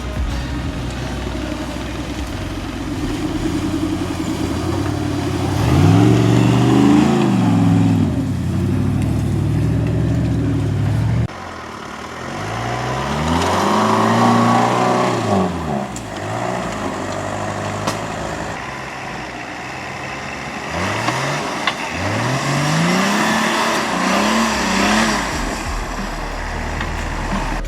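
Off-road 4x4's engine running and revving hard in three surges, each rising and falling in pitch: about six seconds in, around fourteen seconds, and again from about twenty-one seconds. The sound breaks off suddenly a little past eleven seconds and picks up again.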